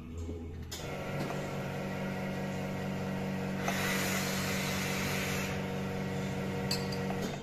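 Espresso machine running: a steady hum that starts about a second in and stops abruptly near the end, with a louder hiss for a couple of seconds in the middle.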